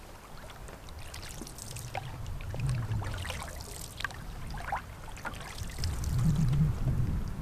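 Canoe paddling on choppy water: paddle strokes splashing and water trickling off the blade, with a low rumble that swells twice.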